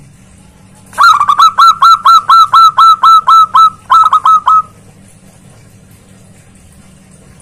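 Zebra dove (perkutut) calling loudly: a fast run of short, sharply falling notes at about five a second, with a brief break about four seconds in.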